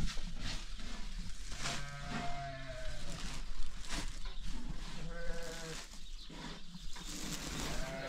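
Sheep bleating: two drawn-out bleats, a third starting near the end.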